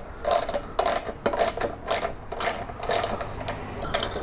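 A ratchet wrench clicking in short bursts, about two a second, as a 10 mm bolt is backed out of the headlight cowling bracket.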